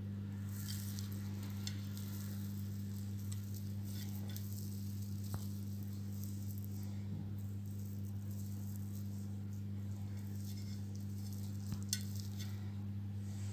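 Faint crackling and rustling of thin pan-fried gözleme flatbread being torn apart by hand, over a steady low hum.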